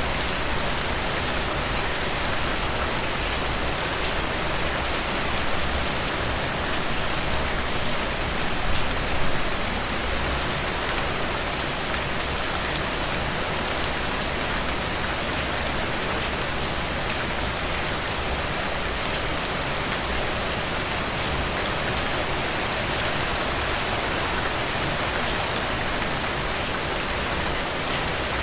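Steady rain falling on glossy frangipani leaves: an even hiss of rainfall with scattered individual drop ticks, swelling slightly about nine seconds in.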